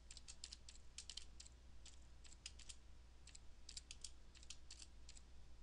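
Faint computer keyboard typing: quick, irregular key clicks in short runs separated by brief pauses.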